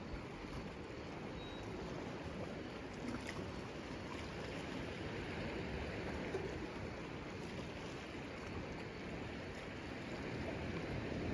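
Sea water washing and lapping against a dock, a steady wash with no distinct splashes.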